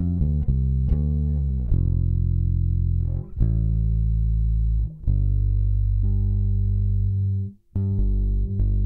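Bass guitar playing single plucked low notes: a few quick notes, then slower notes each left to ring, with a brief silence a little before the end. A faint steady high-pitched whine sits underneath.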